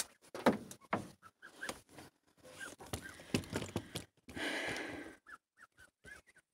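Scattered clicks, knocks and rustling, with a short burst of hiss about four seconds in. Short high bird chirps repeat in the second half.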